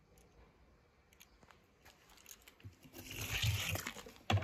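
Crunching and rustling of loose material being stirred, beginning about two seconds in and growing louder, with a short knock near the end.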